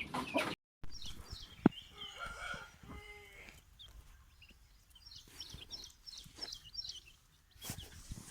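Aseel rooster crowing once, about two seconds in, over many small high-pitched chick cheeps. A single sharp click comes just before the crow.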